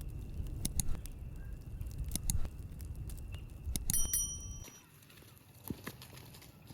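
Campfire crackling with scattered sharp pops over a low rumble, a short metallic ring about four seconds in; the rumble stops abruptly soon after, leaving only a few faint pops.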